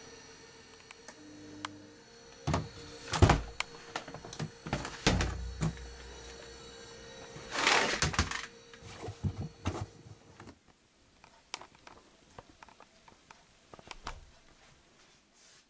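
A front-loading washing machine's steady electrical hum, then a run of knocks and thuds from its door and drum as the load is handled, with a rustle of fabric around eight seconds in. After that only faint scattered clicks and handling sounds.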